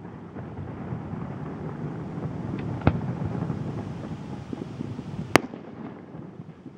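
Fireworks display: a low, continuous rumble of shell bursts with two sharp bangs, one near the middle and a louder one about two and a half seconds later. The rumble fades near the end.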